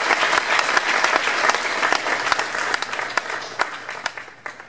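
Audience applauding, many hands clapping at once, thinning out over the last two seconds to a few scattered claps near the end.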